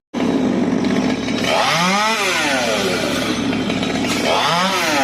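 Chainsaw revved twice, each rev rising in pitch and dropping back, about two seconds in and again near the end, over a steady engine running underneath.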